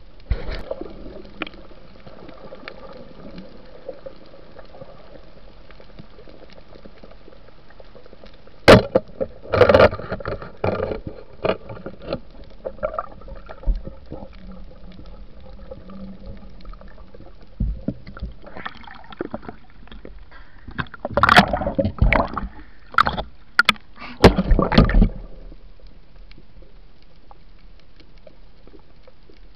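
Muffled underwater sound picked up by a submerged camera: a steady low water hiss, broken by a sharp knock about nine seconds in, a cluster of knocks and water movement just after, and a longer flurry of knocks and sloshing between about eighteen and twenty-five seconds, from the diver handling the fish and his gear.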